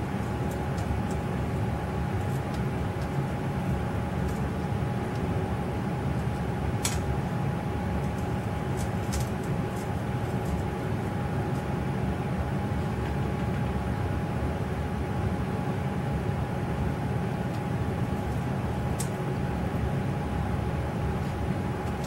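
Steady low room hum with a faint constant whine, and a few faint clicks near the middle and toward the end.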